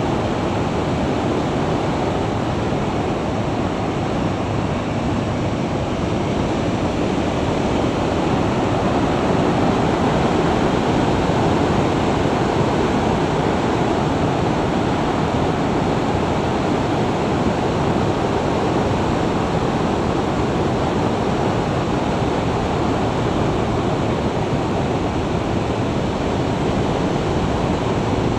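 Steady rush of wind over the microphone of a Garmin VIRB action camera on a motorcycle riding at about 50 to 58 mph, an even roar with no distinct engine note.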